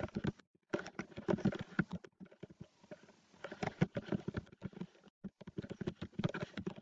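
Typing on a computer keyboard: quick, irregular key clicks in short bursts with brief pauses between them.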